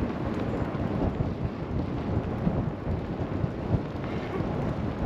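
Wind buffeting the microphone: a loud, uneven low rumble with no clear tones, typical of a camera carried while riding a bike.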